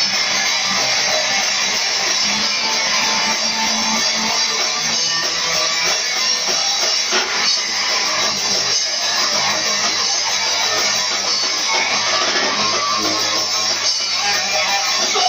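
Live punk rock band playing loud and steady, with electric guitars, bass and drums.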